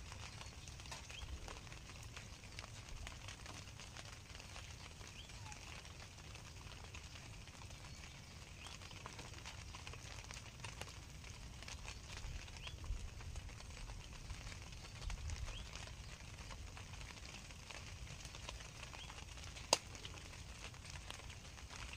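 Quiet outdoor ambience: a steady low rumble with scattered faint, short high chirps, and one sharp click about twenty seconds in.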